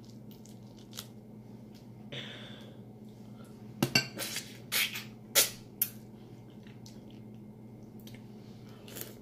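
Mouth sounds of eating a boiled shrimp, close to the microphone: a quick run of loud, wet smacks and slurps as it is bitten and chewed, about four to six seconds in. Faint clicks of shrimp shell being peeled come before and after.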